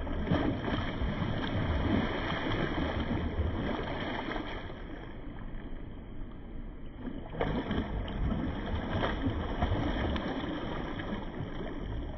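Spawning salmon thrashing in shallow stream water, making irregular splashing that eases off midway and picks up again.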